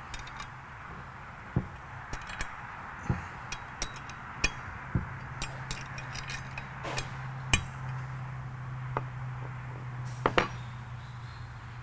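Irregular metallic clicks and taps of bolts, spacers and a hand tool against a steel mounting bracket as the bracket is snugged onto a FASS fuel pump on a workbench, over a steady low hum.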